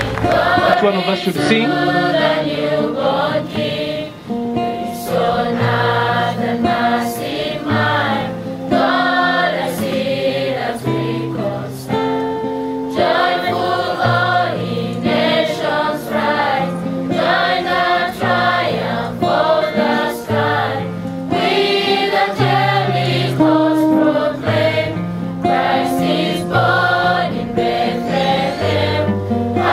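Mixed choir of men's and women's voices singing in harmony, low and high parts held together, phrase after phrase with short breaks for breath.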